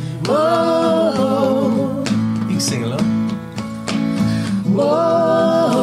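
Live acoustic guitar strummed, with a man and others singing along in long drawn-out 'whoa' notes: two held notes, one near the start and one near the end, with guitar strums between them.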